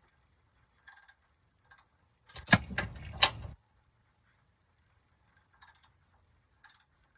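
Scattered sharp metallic clicks and clinks of hand tools and metal parts, with two louder clanks about two and a half and three seconds in.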